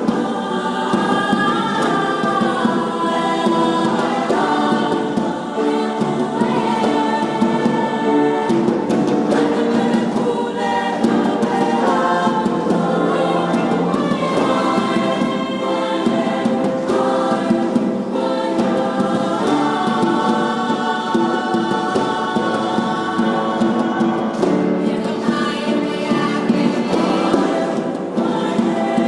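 Choir singing in several parts at once, a full, continuous blend of voices.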